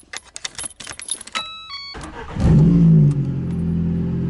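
Keys jangling as the key goes into the ignition of a VAZ-2114, then a short run of electronic beeps. The starter cranks briefly and the four-cylinder petrol engine catches about two and a half seconds in, revs up and settles to a steady idle.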